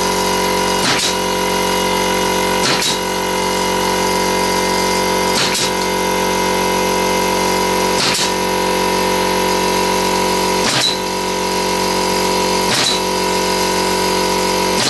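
Small direct-drive air compressor with a 24-litre tank running with a steady motor hum as it refills after its pressure dropped. Over the hum a pneumatic framing nailer drives nails into a wooden block with a sharp shot about every two to three seconds, six of them plus one more at the very end.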